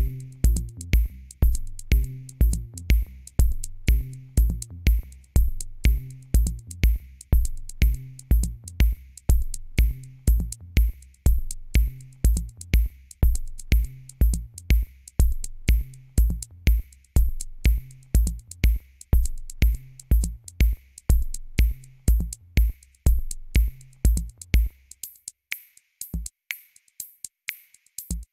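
Background electronic music with a steady, quick drum-machine beat. The bass and kick drop out about 25 seconds in, leaving only light hi-hat ticks.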